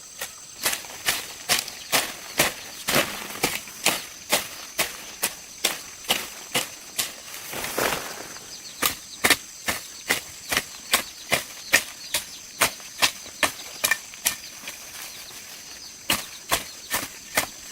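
Sharp strikes repeated at a steady pace, about two to three a second, over a steady high-pitched insect drone.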